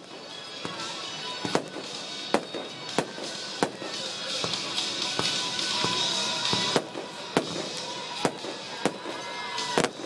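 Fireworks display: a rapid series of sharp bangs from bursting aerial shells, roughly one every half second to second, over a crackling hiss that swells in the middle.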